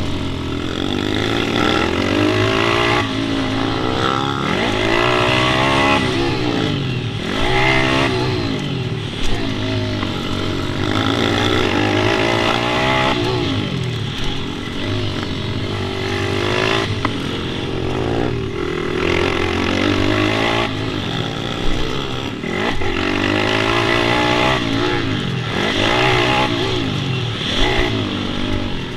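Small single-cylinder pit bike engine revving up and dropping back over and over as it is ridden hard round a track, with a few brief sharp knocks.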